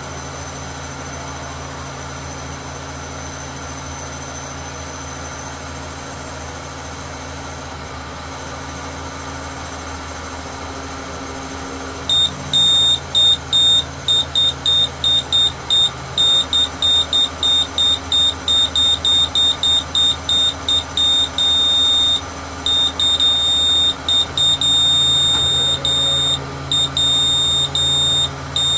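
Mobile crane's diesel engine running steadily, heard from the operator's cab. About twelve seconds in, a loud high-pitched electronic warning beeper starts, beeping rapidly on and off, with some longer tones near the end.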